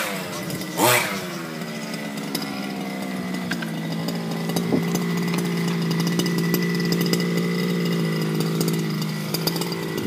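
Small two-stroke petrol engine of a remote-control car revving up and dropping back once about a second in, then idling steadily.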